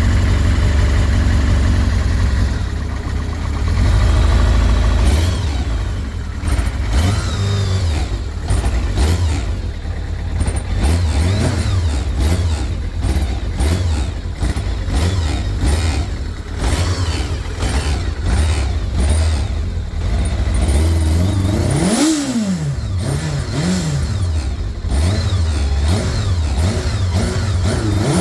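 Kawasaki ZR-7 air-cooled inline-four motorcycle engine idling with what the owner calls a bad engine noise. Near the end the throttle is blipped a few times, and the revs rise and fall.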